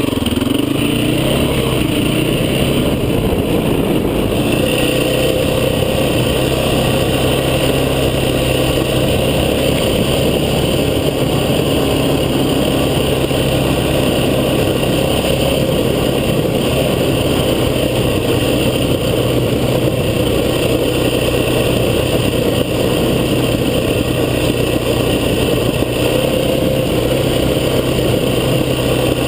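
Off-road vehicle's engine running steadily under load, its pitch rising briefly at the start and then holding.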